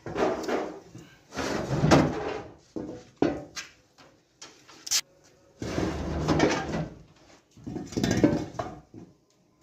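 Metal scraping and clattering in irregular bursts as metal sewing-machine parts are handled at a heavy iron cabinet, with one sharp click about five seconds in.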